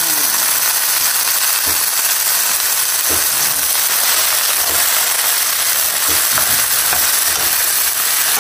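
Asparagus pieces sizzling in a hot nonstick frying pan with garlic, stir-frying, with a steady loud hiss. A wooden spatula stirring them knocks lightly against the pan every second or so.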